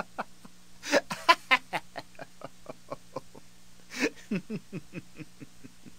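A person laughing in quick, short pulses, in two bouts, one starting about a second in and one about four seconds in, each fading away.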